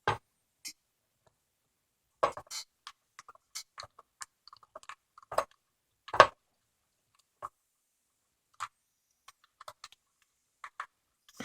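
Brass padlock being taken apart by hand: scattered light metal clicks and taps, with a sharper knock about six seconds in.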